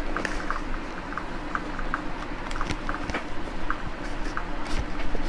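A cardboard product box handled in the hands, with light rubbing and a few sharp clicks near the end, over a faint steady hum and an irregular string of short high chirps.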